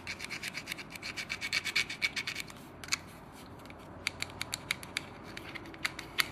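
A small screwdriver scraping and scratching at the electrical contacts inside a wet sander's plastic motor housing, cleaning off dried granite and marble slurry that causes poor contact. The strokes come quickly for the first two and a half seconds, then as sparser single scratches toward the end.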